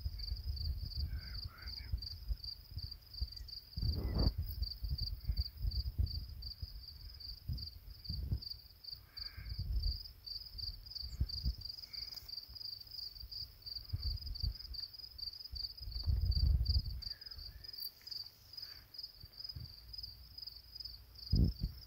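An insect trilling steadily in rapid pulses, with gusts of wind rumbling on the microphone and a few faint prairie dog yelps.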